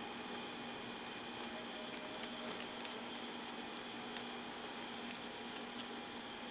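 Steady hum and hiss of room tone, with a few faint light clicks.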